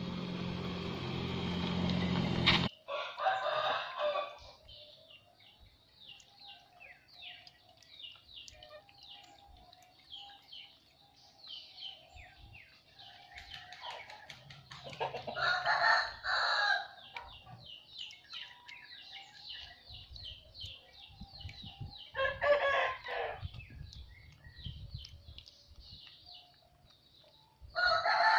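A steady low hum cuts off abruptly about two and a half seconds in. After that a rooster crows four times, spread well apart, over faint chirping of small birds.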